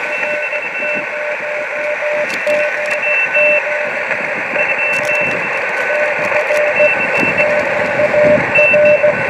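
Morse code (CW) heard through a Yaesu HF transceiver's speaker on the 20 m band: on-off keyed tones from several stations at different pitches over steady receiver hiss. The strongest is a low tone sending dots and dashes.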